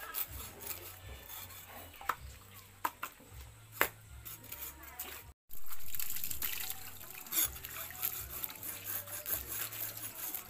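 A knife scraping and knocking on a cutting board as python meat is cleaned, with a few sharp knocks. After a brief break about halfway, water trickles and splashes from a garden hose onto the snake pieces and wet concrete.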